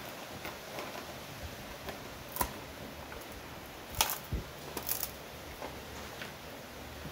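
A dog gnawing a dried pig ear: scattered sharp cracks and clicks of teeth on the hard chew, the loudest about four seconds in and a short cluster just before five seconds.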